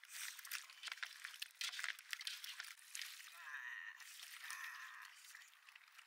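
Hands stirring raw potato slices in a metal basin, a quick run of clicks and rustles as the slices slide against each other and the bowl. Then, about halfway, water is poured from a metal flask into the basin.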